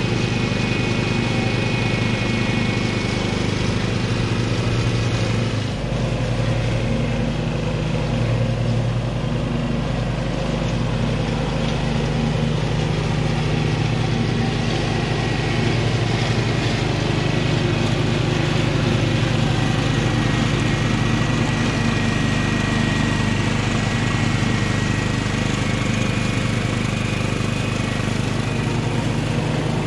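Husqvarna riding lawn mower running steadily while cutting tall rough grass and weeds, with a brief dip in level about six seconds in.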